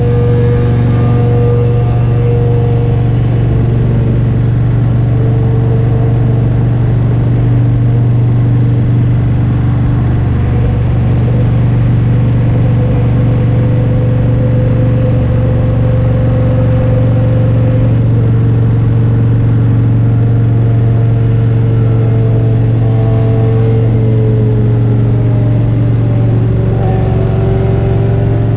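Motorcycle engine running at a steady cruise, its pitch drifting gently up and down with small throttle changes.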